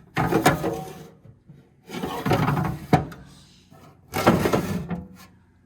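Metal tool box drawers sliding in and out on their runners: three scraping slides about a second each, with a sharp knock as one shuts about halfway through.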